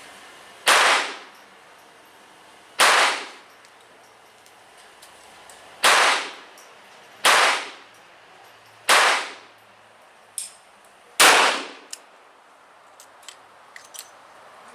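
Handgun shots from .38 Special 200-grain lead-bullet handloads with 7.6 grains of Accurate No. 7 powder, a stiff load: six sharp reports spaced one to three seconds apart, each ringing off briefly, with a few small clicks near the end.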